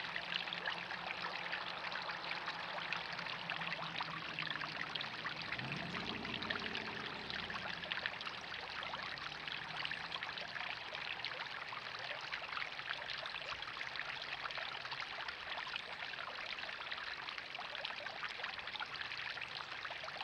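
Water steadily splashing and pouring from a small backyard pond's spillway waterfall and fountain jets into the pond. A faint low drone lies under it early on and rises in pitch about six seconds in.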